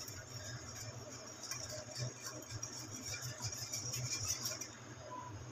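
Wire whisk beating a thick yogurt-and-spice marinade in a glass bowl: faint, quick, irregular clicking and scraping of the wires against the glass.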